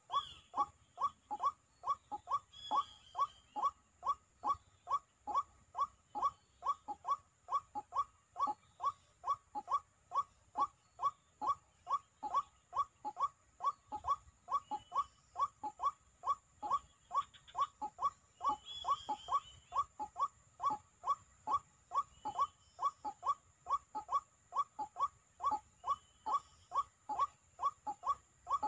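White-breasted waterhen calls played on a loop as a trapping lure: a short falling note repeated very steadily, a little over two times a second. Faint, brief higher chirps come in now and then.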